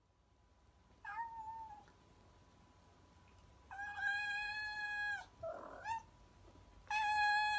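Domestic cat meowing: a short call about a second in, then two long, drawn-out meows held at an even pitch, each about a second and a half, with a brief noisy sound between them.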